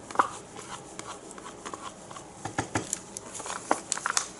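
Small plastic paint cups being handled and set down, giving light, irregular clicks and taps.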